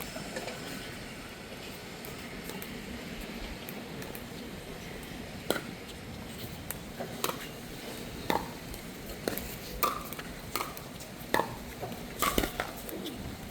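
Pickleball rally: paddles hitting the plastic ball, sharp pops about once a second starting about five seconds in, with two hits in quick succession near the end.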